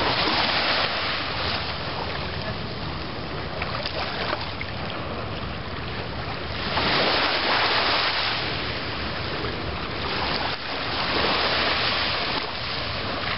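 Ocean surf washing on the shore, an even hiss of noise that swells louder three times, with wind on the microphone.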